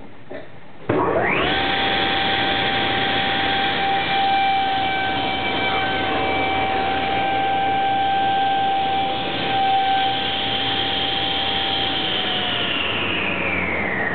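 Table saw switched on about a second in, the motor and blade spinning up to a steady whine. It runs while a board is crosscut in a wooden crosscut sled. Near the end the saw is switched off and the whine falls in pitch as the blade coasts down.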